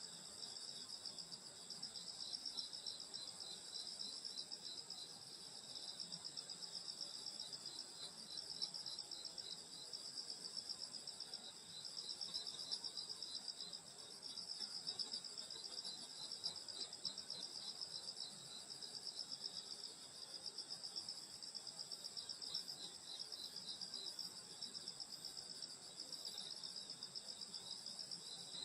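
A steady chorus of grass insects such as crickets chirping on a summer night: several high-pitched trills overlapping in a fast, pulsing rhythm.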